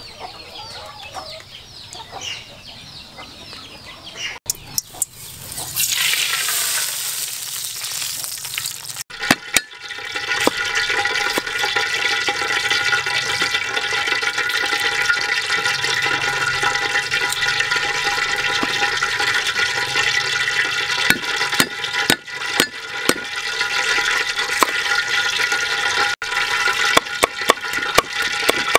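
Water splashing for a few seconds, then a steady hiss. Near the end comes a run of sharp knocks of a cleaver chopping on a wooden chopping board.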